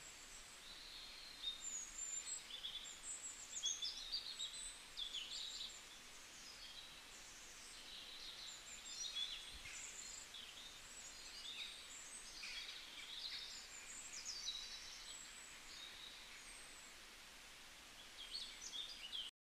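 Many small birds chirping and twittering faintly, a continuous overlapping chorus of short high calls over a light background hiss; it cuts off abruptly just before the end.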